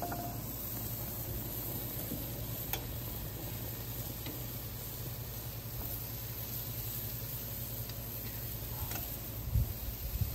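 Lamb chops sizzling steadily on a barbecue grill, with a couple of low bumps near the end.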